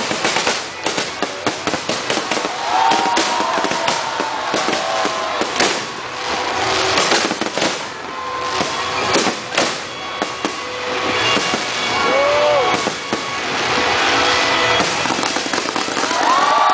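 Fireworks bursting and crackling in rapid succession, a dense run of bangs and crackles.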